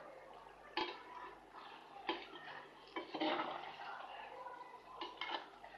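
A spoon stirring thick chicken curry gravy in a clay pot, knocking and scraping against the pot's side and rim several times.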